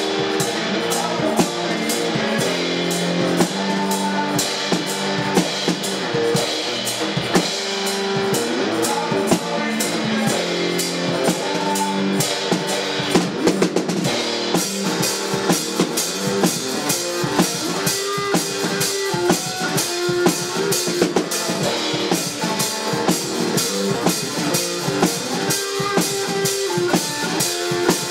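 Live garage blues-rock band playing: electric guitar over a drum kit keeping a steady beat.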